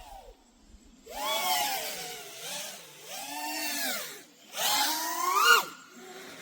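Motors and propellers of a 6S 5-inch FPV freestyle quadcopter (iFlight Nazgul XL5) whining in three throttle bursts, the pitch rising and falling with each punch; the last burst, near the end, is the loudest.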